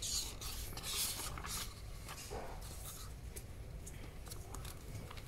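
Glossy magazine pages rustling as they are leafed through by hand, in short scattered flurries, the loudest about a second in.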